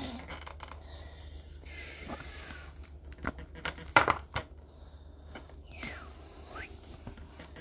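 Baseball cards being handled and sorted: soft rustling and scattered light clicks, with a sharper tap about four seconds in.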